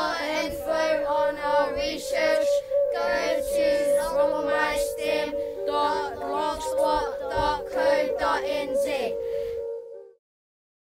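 Children singing together over music, their voices wavering over a long held note underneath; it all stops abruptly about ten seconds in.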